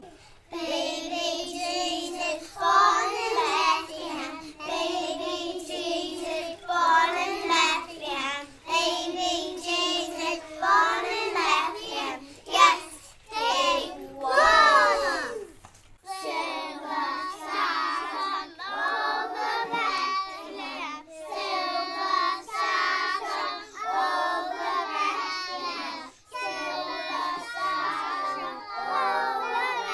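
A small group of young children singing together, their high voices in unison, with a brief break about halfway through.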